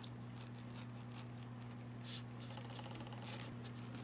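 Kitchen knife slicing through the skin and flesh of a ripe mango, a few soft scratchy cuts, over a steady low hum.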